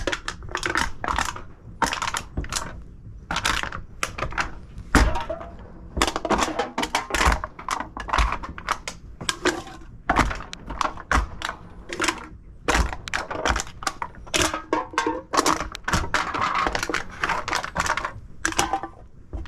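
Empty aluminum drink cans being crushed and handled: a long run of irregular metallic crunches and clatters, with a few heavier thuds among them.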